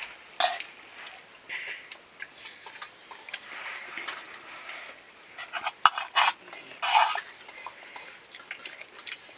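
Kitchen utensils clinking and scraping against dishes and pots in irregular strokes, with a run of sharper clinks about two-thirds of the way through.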